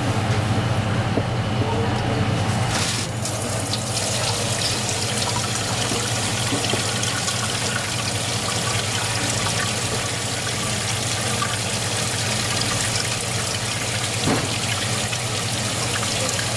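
Water running steadily from a kitchen tap or hose into a sink basin, its hiss growing fuller about three seconds in, over a steady low hum of kitchen machinery.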